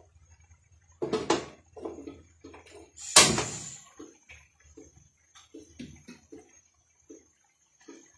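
Aluminium pot lid handled with metal knocks about a second in, then a loud ringing metallic clank about three seconds in as it comes off. Irregular soft pops from pasta water boiling in a frying pan follow.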